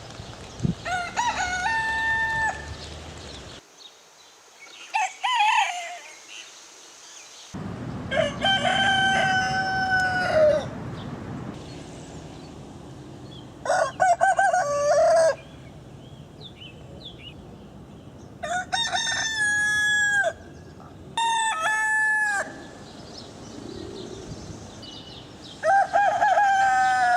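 Roosters crowing: about seven cock-a-doodle-doo crows one after another, each one to three seconds long with a held middle note that drops at the end.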